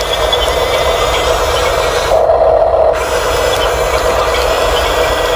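Small electric motors and plastic gearboxes of radio-controlled construction models running, with a steady rasping scrape; the high part of the noise drops away briefly about two seconds in.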